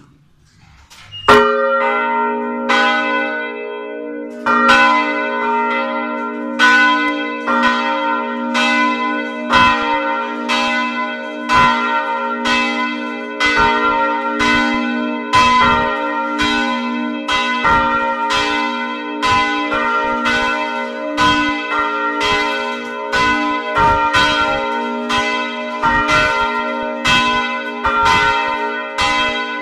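Church bells ringing together in full peal (plenum), heard close up from inside the belfry. The first strike comes about a second in, then strikes follow roughly once a second, overlapping, over a steady low hum from the ringing bells.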